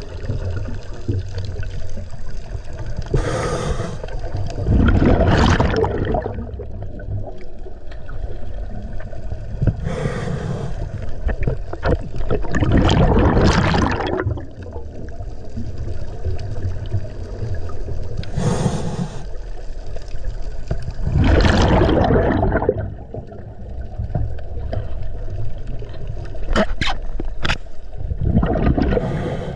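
Scuba diver breathing through a regulator underwater: a short hiss of inhalation, then a longer, louder rush of exhaled bubbles, repeating about every eight seconds over a steady low rumble. A few sharp clicks come near the end.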